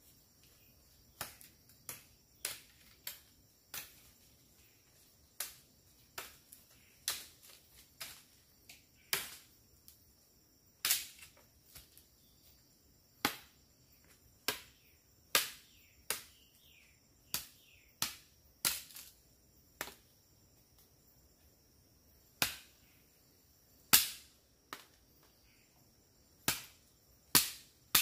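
A long series of sharp knocks, spaced irregularly about one a second, each dying away quickly. Under them runs a steady high insect chirring.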